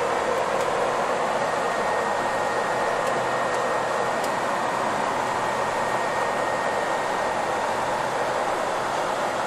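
Steady rushing road and engine noise inside a coach bus moving at freeway speed, with a faint high whine joining about a second and a half in.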